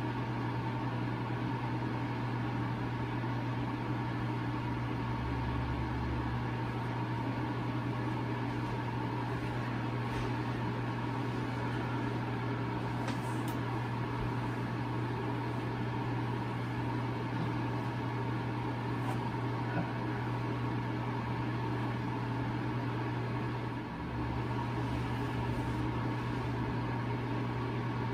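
Steady machine hum in a small room: a constant low drone with fainter steady tones above it, unchanging throughout, with a couple of faint clicks.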